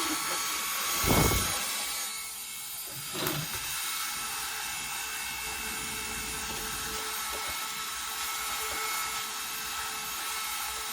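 A small motor runs steadily, with scraping and rubbing of a hand tool. There are two knocks, about one and three seconds in.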